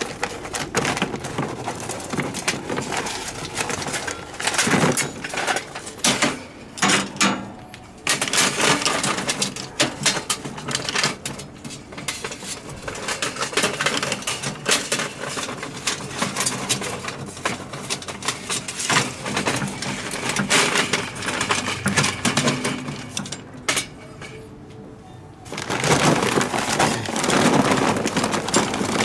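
Charcoal briquettes clattering and scraping into a metal charcoal chimney, many irregular knocks, with a short lull about three-quarters through.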